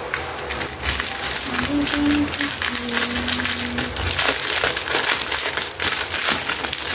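Plastic packets of diamond-painting drills crinkling as they are handled and opened, a dense run of irregular crackles.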